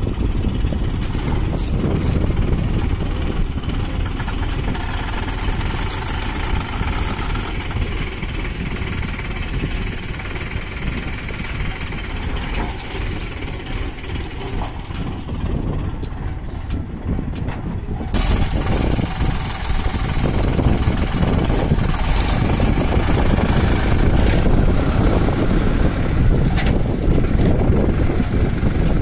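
Solis 5015 tractor's diesel engine running steadily under load as its rear blade scrapes and pushes soil, getting a little louder about two-thirds of the way in.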